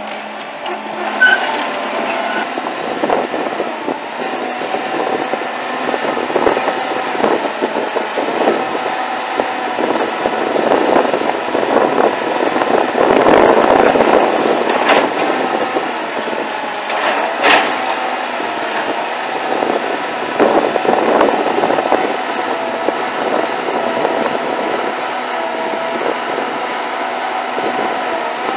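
Diesel engine of a 1994 Hyundai Robex 200 LC excavator running under hydraulic load while the boom is raised and the arm is stretched out, with a wavering steady whine over the engine noise. It is loudest about halfway through, with a few short clanks along the way.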